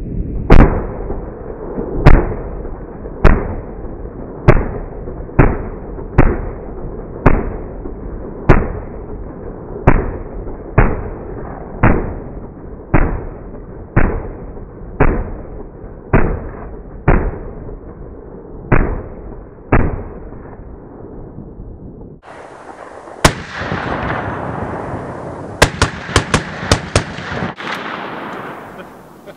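Browning M1919 .30 caliber belt-fed machine gun firing single shots, about one a second, some eighteen in all over the first twenty seconds. Near the end comes one more shot, then a rapid string of about six.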